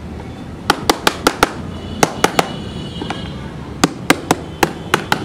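Sharp taps of a hand tool striking the top of a lead-acid battery, in three quick runs of three to six taps, each with a short metallic ring.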